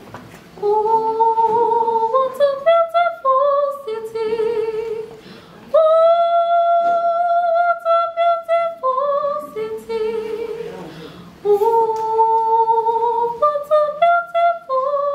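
A young woman singing a solo a cappella with vibrato, her melody stepping between notes with one long held note about six seconds in, over soft low humming from male voices.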